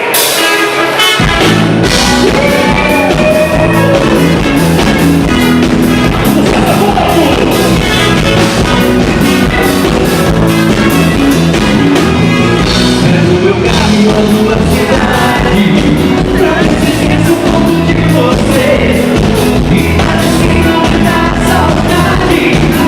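Live band music with a steady dance beat and a male lead voice singing, the drums and bass kicking in about a second in.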